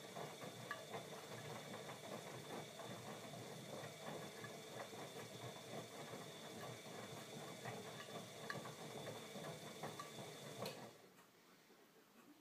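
Bosch Maxx 40 WFC2445 washing machine running: a steady high whine over a busy patter of small clicks, which stops suddenly near the end.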